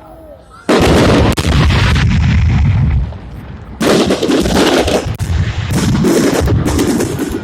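Fireworks display: a sudden volley of rapid bangs and crackling starts under a second in, eases off briefly near the middle, then comes back just as dense.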